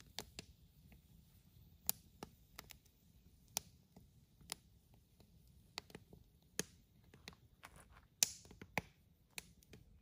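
Split firewood burning in a steel fire-pit ring, crackling with sharp, irregular pops; the loudest pop comes about eight seconds in, with a brief hiss after it.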